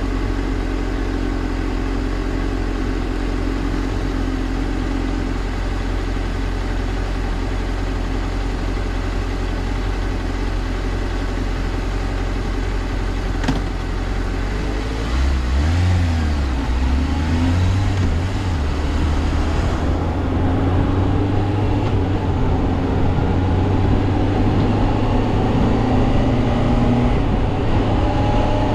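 Suzuki GSR400's inline-four engine running under way, steady for about the first half, then changing and rising in pitch as the bike picks up speed. A short click comes about halfway through.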